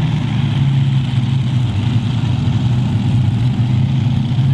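Heavy Modified pulling tractor's twin supercharged V8 engines idling steadily, waiting to start a pull.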